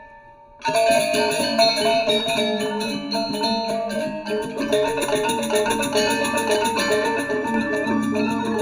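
Gamelan ensemble music: bronze metallophones struck in fast, dense patterns of ringing pitched notes. It comes in suddenly about half a second in, after a brief lull.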